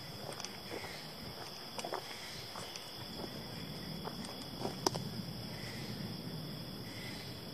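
Steady high-pitched chorus of late-summer insects, such as crickets, in the woods, with scattered light clicks and crackles in dry leaf litter; the sharpest snap comes a little before the five-second mark.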